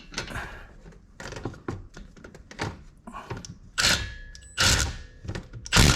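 Three short loud bursts from an impact wrench driving a brake caliper bolt tight, with a faint motor whine under the middle burst. Light clicks and knocks of the tool and socket being fitted come before them.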